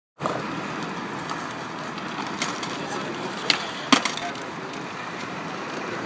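Wooden skateboard decks being handled and knocked on pavement: a few sharp knocks, the loudest two close together about three and a half and four seconds in, over background voices.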